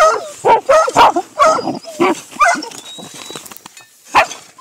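Hunting dog barking in a quick run of short barks at an agouti holed up in its burrow, then a pause and one more bark near the end.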